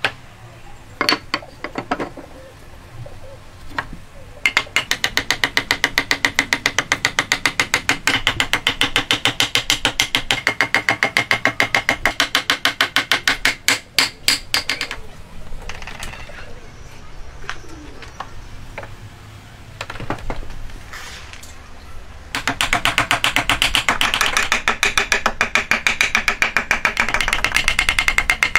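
A wooden mallet tapping hardwood joinery pieces to seat a table corner joint: a few separate knocks, then long runs of quick, evenly spaced taps with a quieter pause between them.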